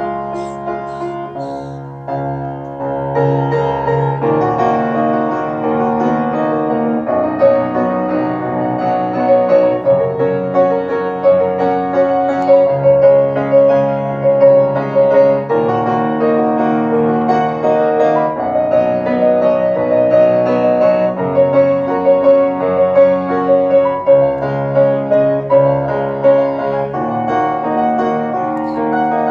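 Solo grand piano played live, softer for the first couple of seconds, then fuller and louder from about three seconds in.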